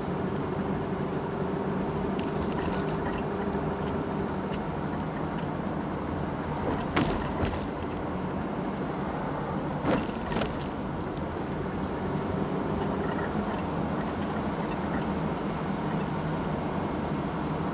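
Car driving slowly, heard from inside the cabin: a steady engine hum and road noise, with faint light rattling clicks throughout and two louder knocks a few seconds apart near the middle.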